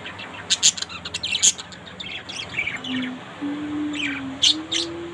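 Budgerigars chirping and chattering in a cage: many short, quick chirps and squawks throughout. A low, slightly wavering steady tone joins about three seconds in.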